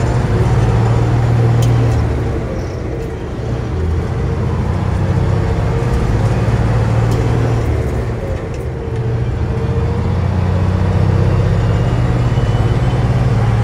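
1979 Kenworth W900A's diesel engine and road noise heard inside the cab while the truck cruises on the highway: a steady low drone that dips briefly twice.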